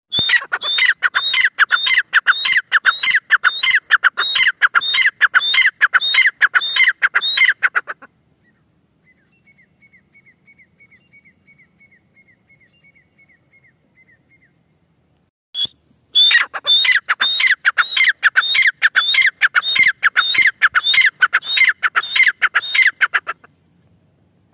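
Grey francolin calling in two long bouts of loud, harsh notes repeated about three times a second, each note sliding downward. The first bout stops about 8 seconds in, and after a pause with one call the second starts about 16 seconds in and runs for about seven seconds.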